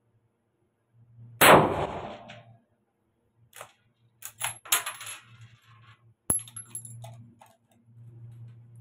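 .303 British Lee-Enfield rifle firing a single shot about a second and a half in, with a ringing tail in the room. Then the bolt is worked: a run of sharp metallic clicks and clacks, one very sharp clack near the end.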